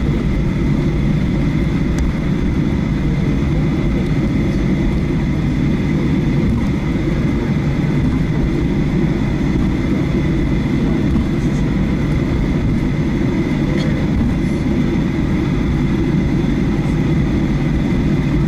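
Boeing 737-800's CFM56-7B turbofan engines running at taxi power, heard inside the cabin: a steady low rumble with a thin steady whine over it.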